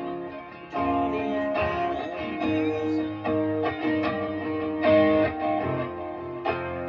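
Electric guitar strummed through a Boss Katana amplifier: chords struck and let ring, changing about once a second.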